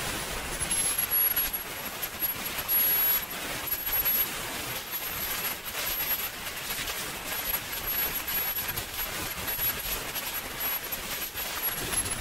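Swiwin 300 model jet turbine running at high power: a steady jet roar with a thin, high whine on top. The whine climbs in pitch during the first second, holds steady, and begins to drop right at the end.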